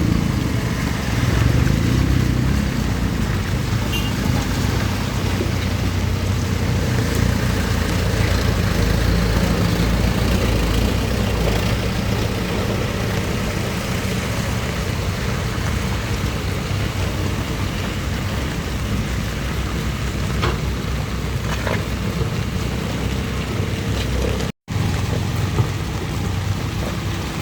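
Trucks and other vehicles driving past on a wet road: steady engine noise with the hiss of tyres and rain. The sound cuts out for a split second about three seconds before the end.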